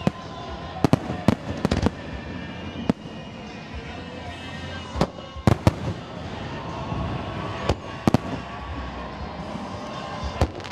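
Fireworks display: aerial shells bursting overhead, about a dozen sharp bangs at irregular intervals over a continuous rumble.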